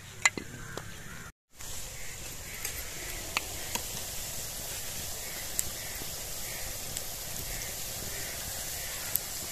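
Onions frying in hot ghee in a kadhai, a steady sizzle, with a few light clicks. The sound drops out briefly about a second in.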